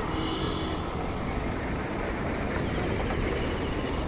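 Steady road traffic noise: a constant mix of vehicle engines and tyres.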